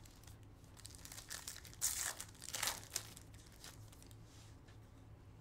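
Thin plastic crinkling and rustling as trading cards are handled, in short scattered bursts; the loudest come about two and two and a half seconds in.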